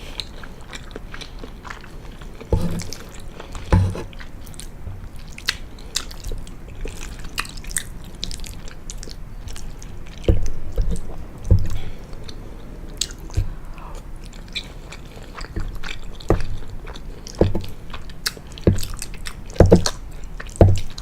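Close-miked chewing of penne pasta in pesto sauce: many short mouth clicks and smacks, with a few louder bites.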